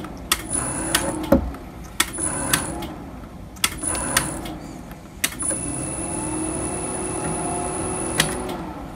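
A 4.2 mm tapping drill in a CNC mill spindle drilling through a metal block, fed gently down with the jog function. Repeated sharp clicks, each followed by a short high whine as the axis moves, then a longer steady feed over the last few seconds.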